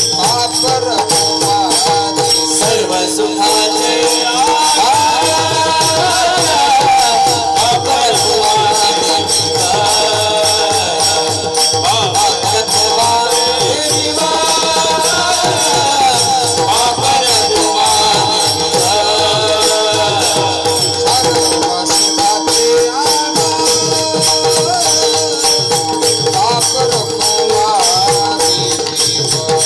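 Many small brass hand cymbals (taal) clashing in a fast, steady rhythm under group singing of a devotional kirtan chant.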